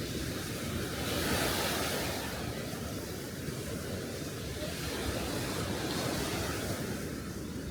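Sea waves washing on the beach in a steady wash, with one louder surge of surf about a second in.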